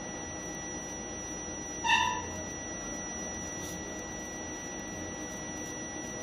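Faint steady high whine and hum in the treatment room, with one short pitched beep about two seconds in, typical of a high-frequency electrocautery unit's activation tone while the needle cauterises the nasal spider veins.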